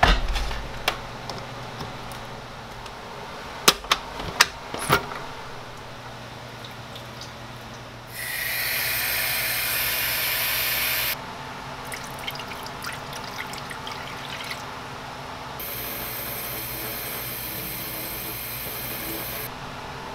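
Tap water running into a stainless steel measuring cup, a loud steady splashing hiss lasting about three seconds. Around it are other kitchen handling sounds: a low thud right at the start as the blender is handled, a few sharp clicks a few seconds in, and a second, quieter stretch of hiss near the end.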